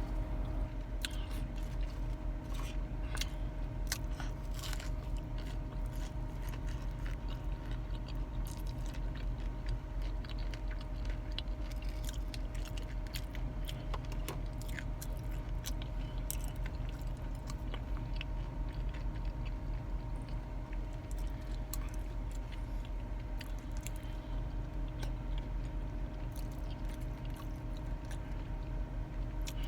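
Close-miked chewing and biting on a breaded jalapeño popper, with crisp crunches and mouth clicks throughout. A steady low hum runs underneath.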